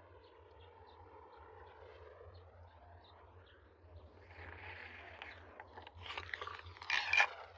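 Baitcasting reel being cranked, with a faint regular ticking. About two-thirds of the way in, louder scraping and clicking noises build up and are strongest near the end.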